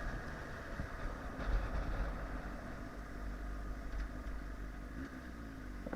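Motorcycle engine running under way, with a steady low rumble of wind on the microphone. The engine note drops slightly about five seconds in.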